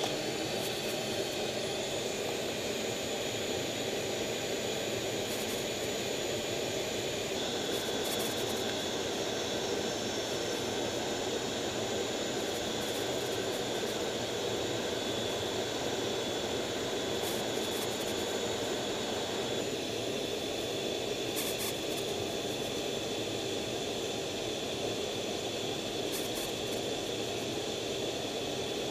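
F/A-18 jet engines running steadily on a carrier deck: a constant rushing roar with a thin high-pitched turbine whine over it.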